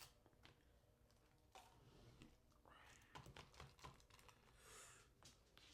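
Faint rustling and irregular clicking of fast-food packaging being opened by hand.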